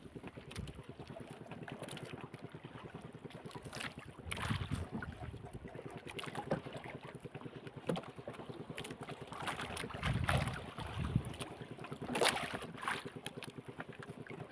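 Waves lapping against a small fishing boat rocking on choppy sea, with wind on the microphone and a steady fast pulsing hum underneath. Louder low swells of water come about four, ten and twelve seconds in.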